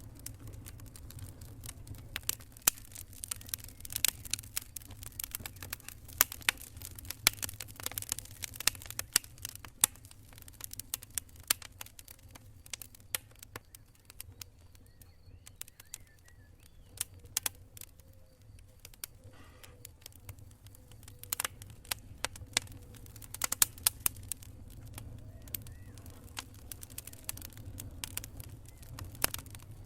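Wood campfire crackling, with irregular sharp pops and snaps, thickest early on and again in the second half, over a steady low rumble.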